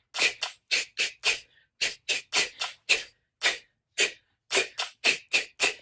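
A voice repeating the phonics sound /k/ for the letter C, a short whispered "k" burst with no vowel, said over and over about three times a second.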